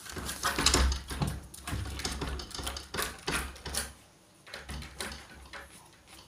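A dog beating at a wooden door and rattling its low metal latch, a fast irregular run of knocks and clicks that thins out after about four seconds.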